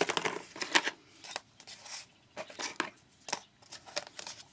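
Thin wooden craft shapes clicking and tapping as they are picked up and laid down, with tissue paper rustling under the hand. About a dozen short clicks, unevenly spaced.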